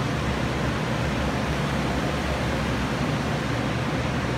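Several water-damage drying machines, carpet air movers and dehumidifiers, running together: a steady rush of blown air over a constant low motor hum.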